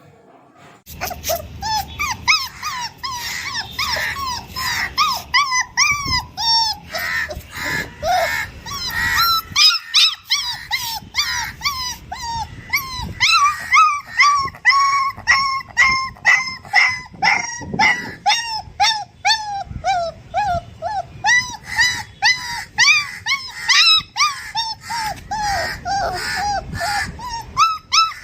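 Puppies whining and yelping in short, high-pitched cries that rise and fall, about two or three a second without letting up.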